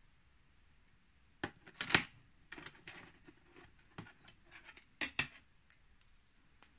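Light knocks and clinks of metal bar stock being handled on a bench: a brass strip set down and thin silver steel rods picked up. There is a scattered series of short knocks, the sharpest about two seconds in and again around five seconds in.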